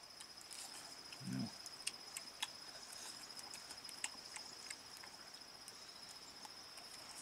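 Insects trilling steadily in the forest, a high continuous pulsing buzz. A short low grunt comes about a second in, and a few faint clicks sound over the trill.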